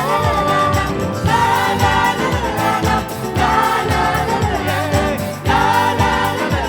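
Upbeat Arabic Christian children's song: a choir singing over a band with a steady drum beat.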